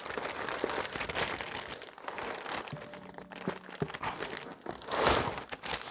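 Plastic packaging crinkling and rustling as kit parts are pushed back into a cardboard box, with scattered light knocks and a louder rustle about five seconds in.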